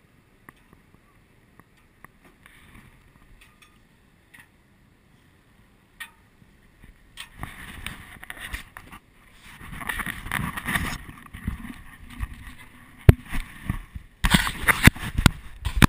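Rustling and knocking: faint small clicks at first, a louder, busier rustle from about halfway, then a run of sharp loud knocks near the end.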